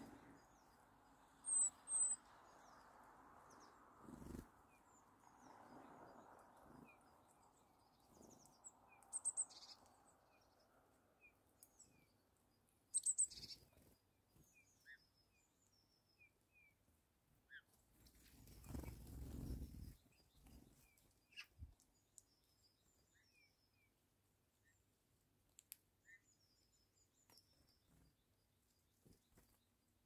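Small songbirds calling: scattered faint, short high chirps throughout, with a few loud, sharp high-pitched calls in quick pairs about two, nine and thirteen seconds in. A soft rush of noise lasts about two seconds near the two-thirds mark.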